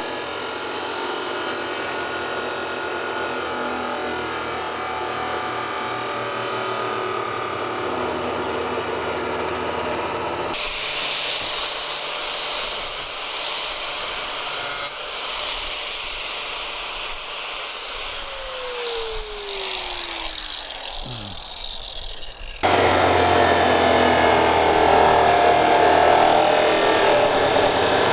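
Chop saw cutting thick-walled steel square tubing, a steady grinding whine. Near twenty seconds the motor winds down with a falling whine, and a louder cut begins a couple of seconds later.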